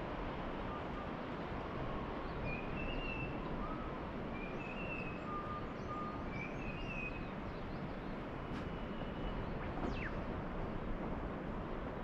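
Steady wash of ocean surf with birds calling over it: a short whistled phrase three times about two seconds apart, fainter chirps, and a quick falling whistle near the end.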